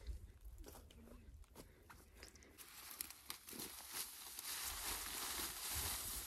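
Dry reed stalks rustling and crackling as an armful is carried and stood against a reed shelter, with footsteps on dry grass. The rustle swells and turns steady about two and a half seconds in.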